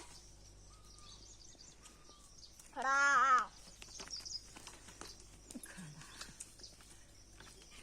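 A goat bleating once, a loud wavering call lasting under a second, about three seconds in. Faint short chirps and scattered light clicks are heard around it.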